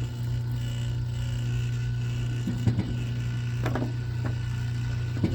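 Wire-stripping machine working thick 400–500 MCM copper cable: a steady low hum with several sharp clicks and short metallic squeaks in the second half.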